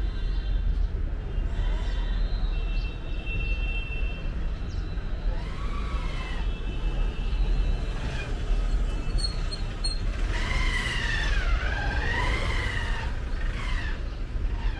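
City street ambience: a steady low rumble of traffic. About two-thirds of the way in, a pitched call rises and falls for a couple of seconds over it.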